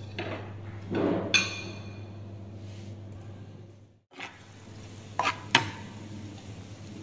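Metal spatula stirring spring onions in an aluminium frying pan, with a few sharp clinks of the spatula against the pan, the loudest a pair about half a second apart near the end.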